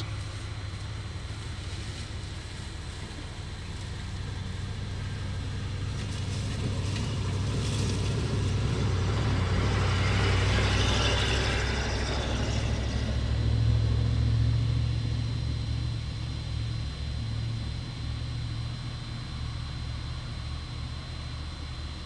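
A vehicle goes by: a steady low rumble, with a rushing noise that swells to a peak about ten seconds in and fades away by about sixteen seconds.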